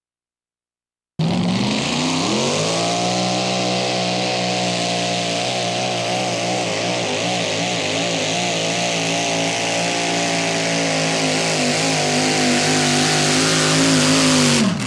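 Mini modified pulling tractor's engine running flat out as it pulls the sled. The sound starts abruptly about a second in, the revs climb for about a second, hold high and steady with a slight waver, then fall away sharply near the end as the pull ends.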